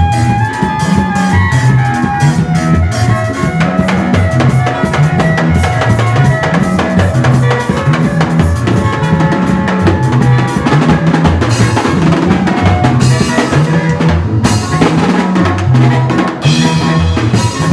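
Music: a drum kit playing a busy, steady beat with kick drum and snare, over a repeating bass line.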